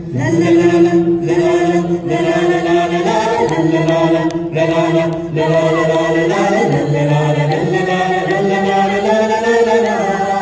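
A group of voices singing together in long held notes, with no clear words, the held pitches shifting every second or two.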